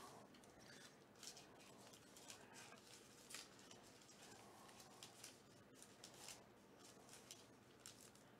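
Faint crinkling and light clicks of foil trading-card packs being handled and shuffled in the hand.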